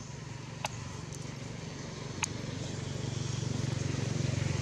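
A low, steady rumble that grows louder about three seconds in, with two sharp clicks, one under a second in and one about two seconds in.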